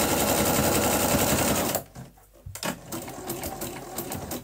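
Bernette domestic sewing machine running fast, stitching a seam in a rapid even rhythm, then stopping abruptly just under two seconds in, leaving softer scattered clicks.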